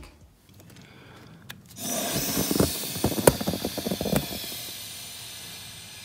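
Air hissing out through a vacuum leak in a BMW engine's intake as breath is blown through a straw into a rubber glove stretched over the intake air boot. The hiss starts about two seconds in with a few sharp crackles, then slowly fades away. It is the sign of an air leak in the intake.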